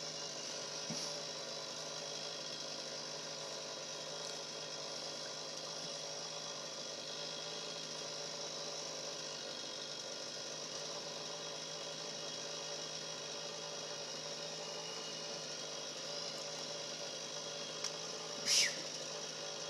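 An engine idling steadily in the background, a constant drone. Near the end comes one short whistle that sweeps in pitch.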